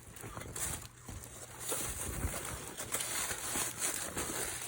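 Irregular rustling and handling noise as a fabric tote bag is unpacked and handled.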